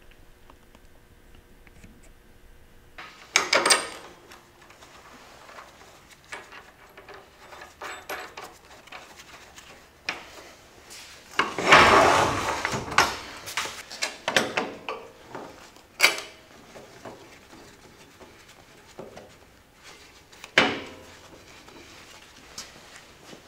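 Irregular metal clanks and scrapes of a steel floor jack being handled on a steel welding table while its caster wheel is refitted. A few sharp knocks stand out, with a longer, louder scraping clatter about halfway through.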